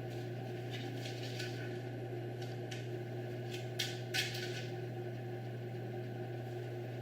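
A few light clicks and taps, with two sharper ones about four seconds in, over a steady low hum.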